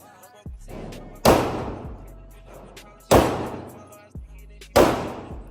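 Three gunshots fired about one and a half to two seconds apart at a shooting range, each with a long echoing tail. Music plays underneath.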